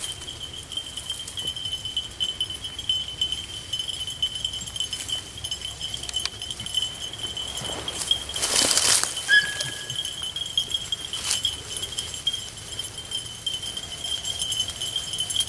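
Beagles baying faintly in the distance as they run a rabbit. A steady thin high tone runs underneath, and a brief rushing swish about eight seconds in is the loudest sound.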